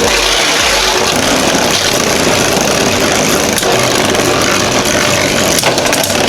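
Two Beyblade spinning tops, one 3D-printed and one with metal swords, whirring and scraping against each other in a battle stadium, with a few sharp clacks as they collide.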